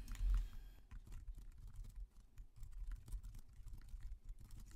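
Typing on a computer keyboard: a quick, irregular run of keystrokes as a sentence is typed.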